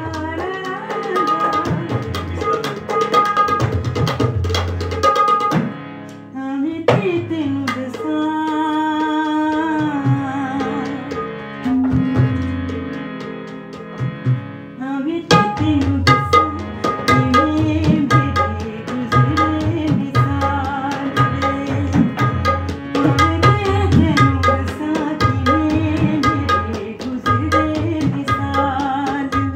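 Tabla played by hand: quick strokes on the small right-hand drum ring at a clear pitch, while the big left-hand bass drum's pitch is bent up and down under the palm. The drumming thins for several seconds in the middle under a held, wavering pitched tone, then picks up again.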